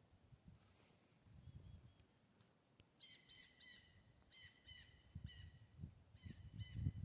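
Faint wild bird calls: a few short, high chips in the first few seconds, then from about three seconds in runs of quickly repeated harsher notes. A low rumble underneath grows louder near the end.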